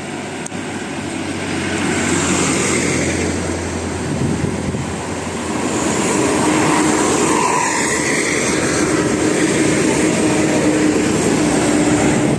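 Large road vehicles such as buses passing close by: a wide rushing noise of engines and tyres that swells twice. A steady low hum comes in about six seconds in.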